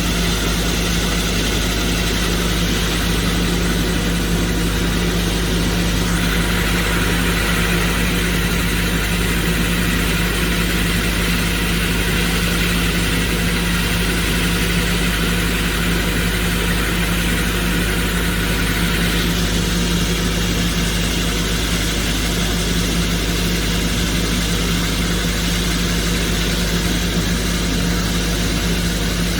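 Excavator engine and hydraulics running steadily under load while an excavator-mounted rock core drill bores into rock. The higher-pitched part of the sound changes about six seconds in and again near twenty seconds.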